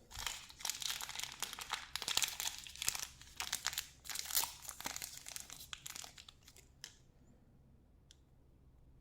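Plastic wrapping of Chupa Chups candy crinkling and tearing as it is opened by hand, a dense crackling that dies away after about seven seconds. One faint click follows near the end.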